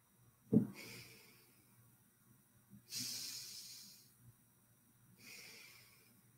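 A woman breathing slowly and deeply in and out through the nose, heard as three faint airy rushes of about a second each. A brief thump comes about half a second in.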